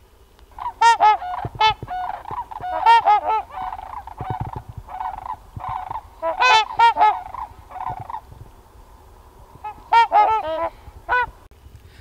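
A flock of trumpeter swans honking, several birds calling over one another in short, horn-like calls that come in bouts of a few seconds with quieter calling between them.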